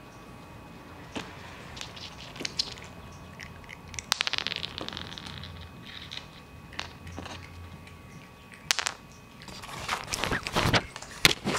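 Cats eating dry cat treats off a laminate floor: scattered crunches and clicks as they bite and chew the kibble. Near the end a cat comes up against the camera, giving a spell of close rubbing and bumping.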